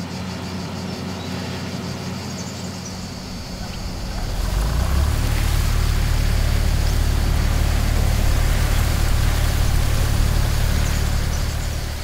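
Combine harvester running with a steady low engine drone; about four seconds in it grows markedly louder and fuller, with a rushing noise over the drone, as the machine works close by.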